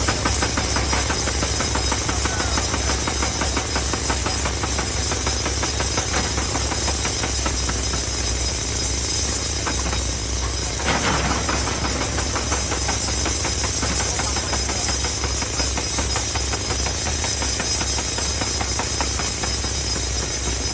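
Excavator working rock: its diesel engine runs steadily under a rapid, continuous pounding, with a brief louder surge about eleven seconds in.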